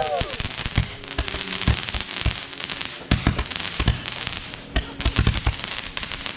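Fireworks and mortars going off: a dense, continuous crackle of firecrackers with scattered louder bangs, the sharpest about three seconds and five seconds in. A fading whistle dies away right at the start.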